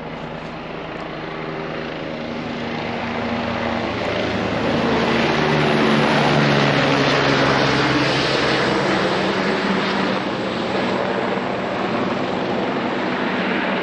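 Low-flying helicopter passing over, its engine and rotor noise growing louder to a peak about halfway through, then easing off a little as it moves on.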